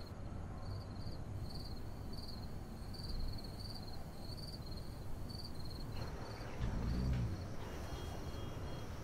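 Night ambience of a cricket chirping steadily, about two short high chirps a second, over a low steady hum. The chirping fades about six seconds in, and a brief low rumble follows about a second later.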